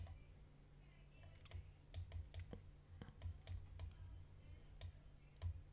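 Faint, irregular clicking at a computer: about ten short, sharp clicks spread unevenly through the few seconds, over a faint low hum.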